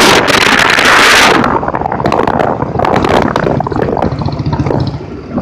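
Wind buffeting the microphone of a moving Royal Enfield Bullet motorcycle, dying down about a second and a half in. After that the single-cylinder engine can be heard running, with a few knocks as the bike rides over the rough dirt track.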